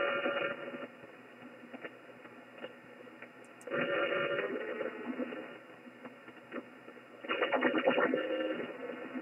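Shortwave receiver audio in upper sideband on the 15-metre band: steady hiss broken by a buzzing noise burst about every three and a half seconds, each lasting about a second. The owner wonders whether it is electrical interference.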